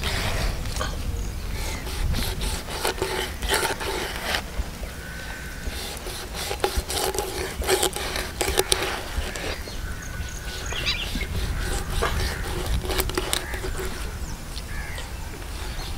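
Kitchen knife slicing scoring cuts through the scaly skin of a large catla fish, a run of irregular crisp scraping cuts, densest in the middle, over a steady low rumble.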